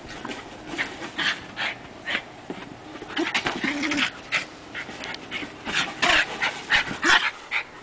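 A dog panting hard in quick, breathy bursts as it chases and pushes a large ball.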